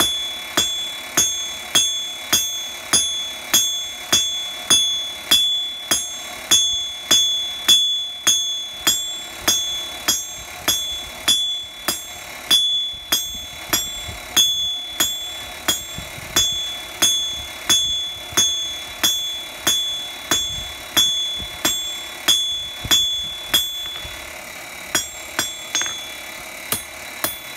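Hand hammer striking hot steel bar stock on a steel anvil during forging, about two blows a second, each with a bright metallic ring from the anvil. The blows break off briefly near the end, then start again.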